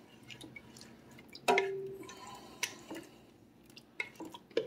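Metal ladle stirring thick creamy soup in a stainless steel pot: soft wet sloshing with a few clinks of the ladle against the pot, the loudest about a second and a half in, ringing briefly.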